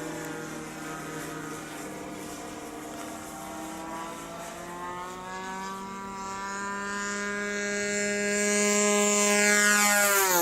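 A 1400 mm radio-controlled P-51 Mustang model with an engine sound unit flying past. Its steady motor and propeller drone grows louder as it approaches, and its pitch drops sharply as it passes close by at the very end.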